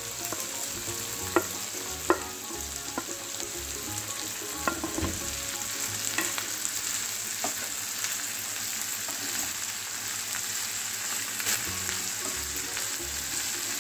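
Chopped vegetables (cabbage, carrot, capsicum and spring onion) sizzling steadily in oil in a frying pan while being stir-fried. A few sharp clicks and taps of the spatula against the pan come through the sizzle.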